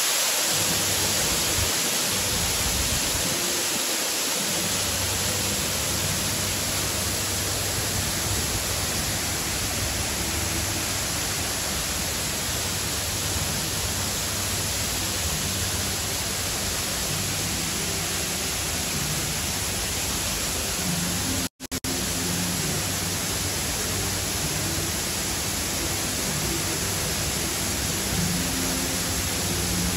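Water pouring down a large artificial waterfall: a constant, steady rushing hiss, broken by a momentary gap about two-thirds of the way through.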